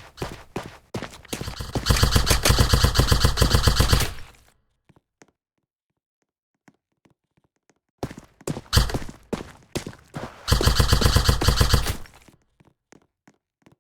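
Airsoft guns firing: two sustained full-auto bursts of about two seconds each, with scattered single sharp cracks before each burst and only faint ticks in the gaps between.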